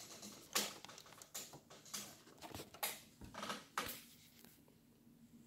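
Smartphone being picked up and handled: a quick series of rustles and knocks against its microphone, dying away about four seconds in.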